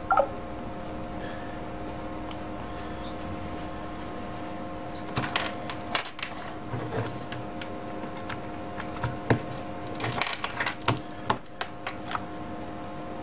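Clicks and rustles of a pair of wired earphones being handled and their plug pushed into a phablet's headphone jack, with taps on the touchscreen, over a steady hum of several tones. A short rising electronic blip sounds right at the start.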